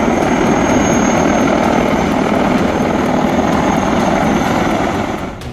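Mi-28 attack helicopter flying low past, its rotor and engine noise loud and steady with a thin high whine over it. The sound drops off a little before the end.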